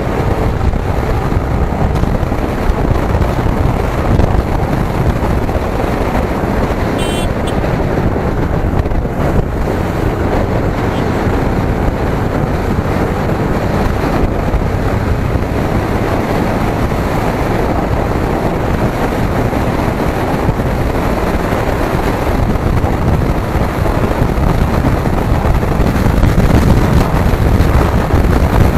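Yamaha sport motorcycle riding at speed: a steady rush of wind over the microphone mixed with the engine running, growing a little louder near the end.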